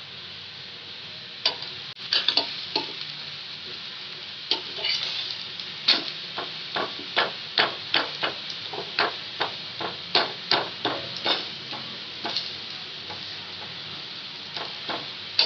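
Egg paratha frying in oil on a flat iron griddle (tawa) with a steady low sizzle, while a metal spatula scrapes and taps against the pan, working under the paratha's edges before it is flipped. The scrapes start about a second and a half in and come roughly twice a second through the middle.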